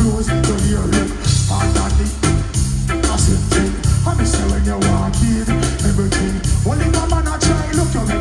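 Loud reggae/dancehall music with a heavy bass line and a steady drum beat.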